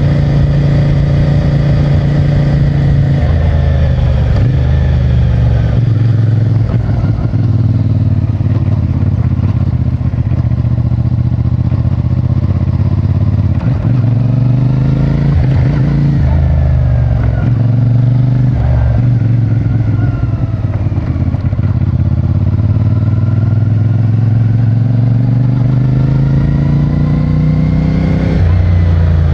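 CFMOTO 450MT's parallel-twin engine through its stock exhaust, riding along. The pitch rises under throttle and falls as it eases off, with a sudden drop like a gear change near the end.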